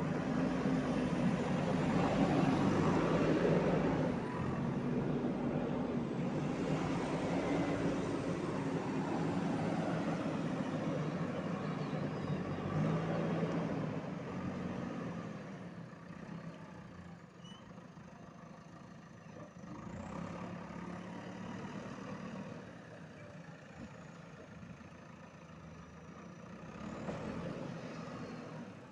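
JCB 3DX backhoe loader's diesel engine working, loud and steady for the first half, then easing to a lower, quieter run for the rest.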